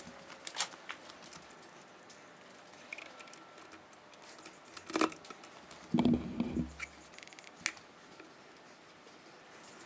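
Scattered sharp metal clicks and light knocks of steel hand tools being handled, with a short clunk about six seconds in, as a hand tap in a T-handle tap wrench is set into the drilled hole and lined up under a spring-loaded center in the milling machine's chuck.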